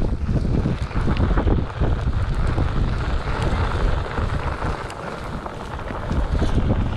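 Wind buffeting the microphone during a Onewheel XR ride over rough ground, a heavy rumbling rush with scattered small ticks. It eases off about four seconds in and builds again near the end.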